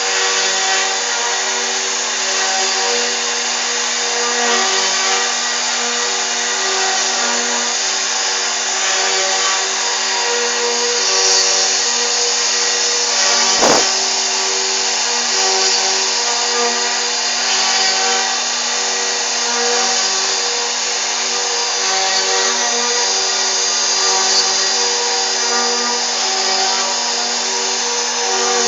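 CNC router spindle running steadily while carving a 3D relief, a constant whir with a hissing cutting noise. A single sharp click about halfway through.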